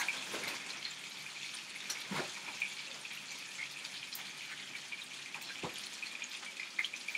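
Chicken thighs frying in bacon fat in a skillet: a steady sizzle with scattered crackles and pops. Two soft knocks, about two seconds in and again nearer six seconds.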